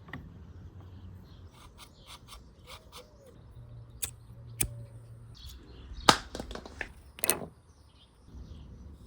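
Scattered clicks and knocks, with a few sharper strikes between about four and seven and a half seconds in.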